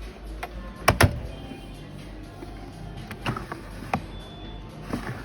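A few sharp clicks and knocks, two close together about a second in and single ones later, over a steady low hum and faint background music.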